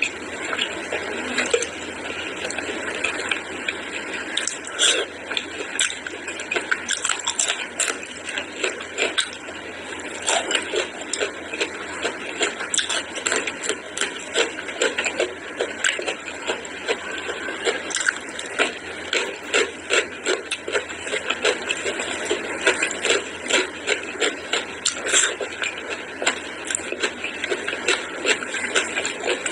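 Close-miked wet chewing and lip-smacking of mouthfuls of curry and rice, a dense, irregular run of small wet clicks and smacks.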